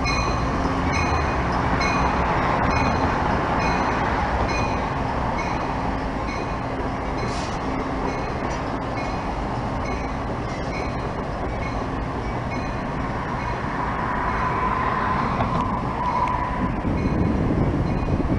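Amtrak GE Genesis diesel locomotive running as it pulls away along the yard tracks, its engine and the rail noise steady. A faint high ring repeats about once a second through the first half.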